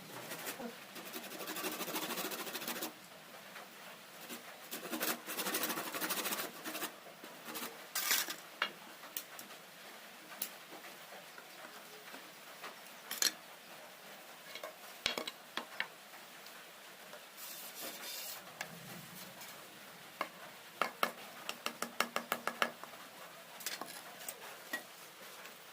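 Handwork on bamboo: spells of scraping and scattered knocks, then a quick run of sharp clicks near the end.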